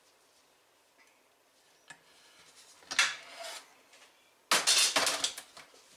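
Metal car parts clanking on a steel workbench as a brake-pedal bracket is lifted off a brake servo and steel plates are handled. A sharp knock comes about three seconds in, and a burst of clattering follows near the end.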